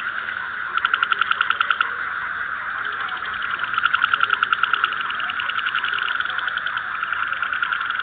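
Chorus of frogs croaking: overlapping runs of rapid pulsed calls, about ten pulses a second, each run lasting a second or two, over a steady background of other callers.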